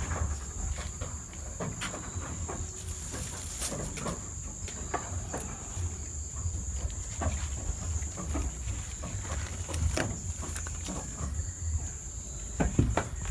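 Goats feeding on leafy awar-awar (Ficus septica) branches: scattered short crunches, rustles and knocks as leaves and stems are pulled, torn and chewed against the wooden slats of the pen. A steady high hum runs underneath throughout.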